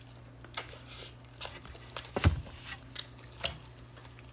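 Close-up wet chewing and mouth sounds of someone eating a birria taco: scattered smacking clicks, with one louder thump a little over two seconds in.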